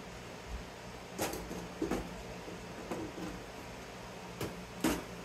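Sheet-metal drive chassis being handled and shifted on a metal workbench: about five separate metal clunks and knocks, the loudest near the end, over a steady low background hum.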